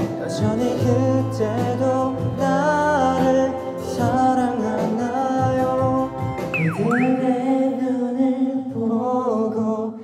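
A man singing a Korean song into a karaoke microphone over a karaoke backing track.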